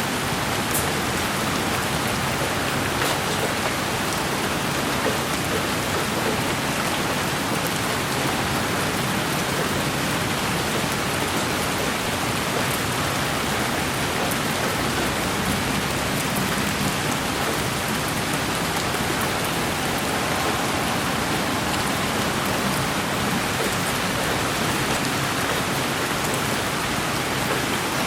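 Steady, even rain falling, a continuous hiss with faint scattered drop ticks.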